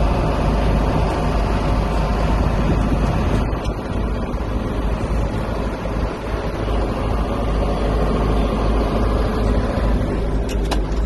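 Tractor engine running steadily under load while pulling a grain cart, a loud constant drone with a few sharp clicks near the end.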